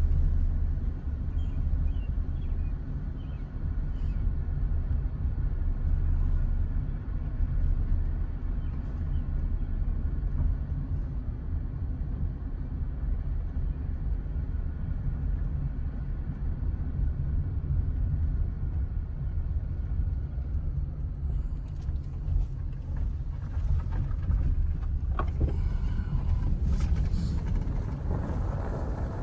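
A motor vehicle running steadily with a low engine rumble, as when driving slowly along the fields. Some added noise comes in over the last several seconds.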